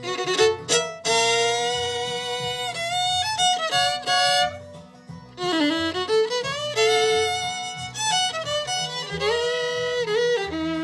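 Bluegrass fiddle break in the key of B, full of sliding notes and double stops, over a steady guitar and bass rhythm backing. It is a recording slowed to 80% with a second fiddle playing along.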